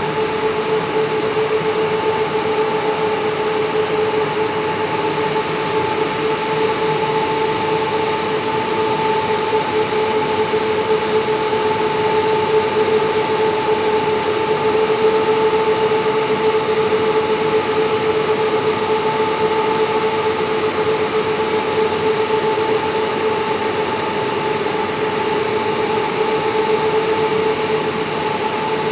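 Steady running noise of industrial machinery: a constant hum with a steady mid-pitched tone over an even rush of noise.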